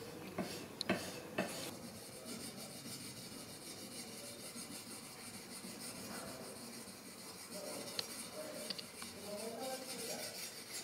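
Small hand-held sharpening stone rubbed in quick, short, repeated strokes along the steel edge of a katana, a steady scraping rasp. A few sharp clicks in the first couple of seconds and one about eight seconds in.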